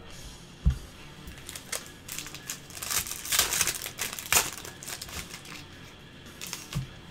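Crinkling of a trading-card pack's plastic wrapper being opened and handled, loudest in the middle, with a single low knock well under a second in.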